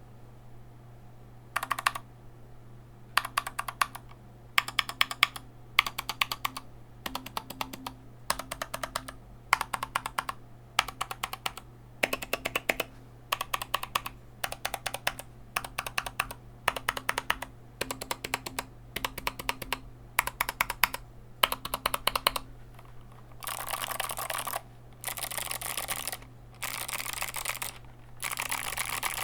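Typing on a foam-modded Anne Pro 2 mechanical keyboard with clicky Kailh Box White switches: short flurries of crisp key clicks with brief pauses between them, turning into longer, denser and louder flurries of fast typing near the end.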